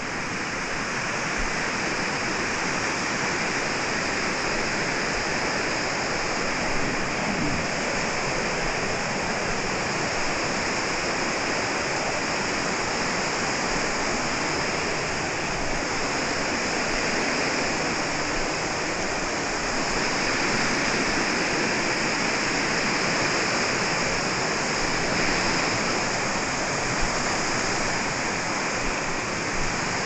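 Creek water rushing down a rocky cascade and small falls: a steady, unbroken rush.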